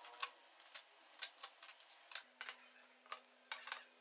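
Steel bolts and a socket tool being fitted into the aluminium right-hand crankcase cover of a Bajaj Platina 100 engine: a run of light metallic clicks and ticks, a few a second, with a quick cluster between one and two seconds in.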